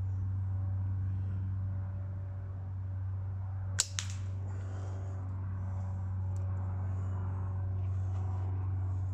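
A catapult shot: one sharp crack and a second, weaker crack about a quarter of a second later, heard over a steady low hum.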